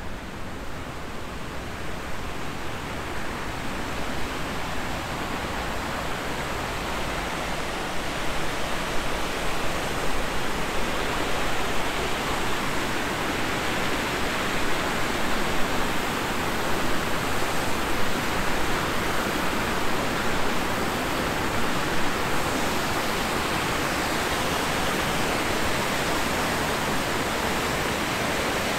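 Water rushing over a weir and down through rocky rapids: a steady rushing noise that grows louder over the first half and then holds.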